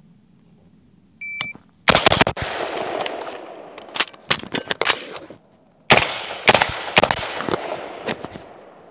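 Shot timer beeps, then an Anderson AR-15 fires three quick shots. After a short reload pause it fires three slower, evenly spaced shots, each one echoing and fading off.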